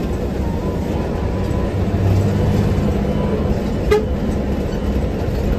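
Hino AK8 bus's diesel engine running under way, heard from inside the cabin as a steady low drone with road noise, and a horn sounding briefly.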